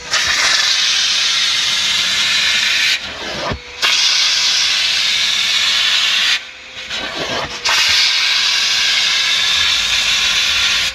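Steam cleaner's jet hissing hard onto car carpet in three long blasts of about three seconds each. Twice the hiss drops away for about a second, leaving a quieter steady hum.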